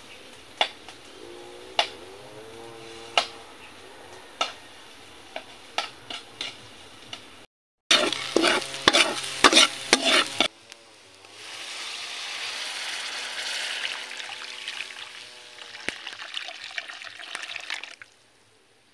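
A metal spatula scraping and stirring sliced onions and garlic in a hot wok, loud clicking scrapes for a couple of seconds. Then coconut milk hissing and sizzling in the pan until near the end.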